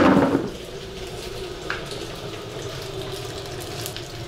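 Steady rushing hiss of gas burners under the kazans, with a brief voice sound at the very start.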